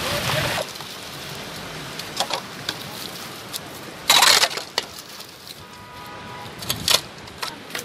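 Vehicle tyres running through wet slush at the start, then a hand shovel scraping and chopping slush and ice off a road surface in short strokes, with a loud scrape about four seconds in and another near seven seconds.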